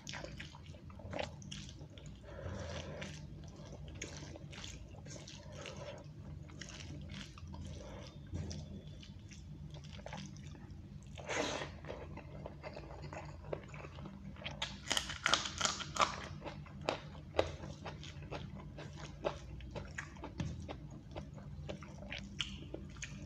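Close-miked eating sounds of a man eating rice and egg curry by hand: wet chewing and mouth smacks, with the squish of fingers working rice into the gravy. The smacking comes as a string of short wet clicks, loudest and busiest about two-thirds of the way through.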